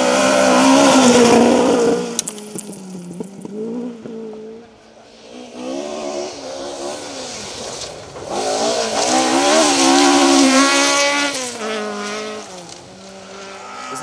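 Mk2 Ford Escort rally cars driven hard on loose gravel, engines revving up and down through a corner with gravel spraying. One car is loud at the start, a quieter engine note carries the middle, and a second car passes close about nine seconds in, its engine climbing to a high rev before backing off.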